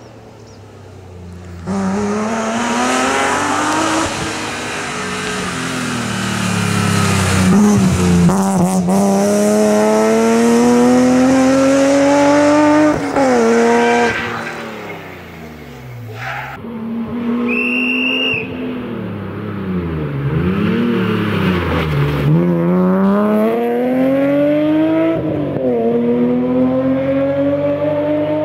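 Rally car engine revving hard through the gears, its pitch climbing in long sweeps and dropping sharply on lifts and downshifts for the corners. A short tyre squeal comes about two-thirds of the way through.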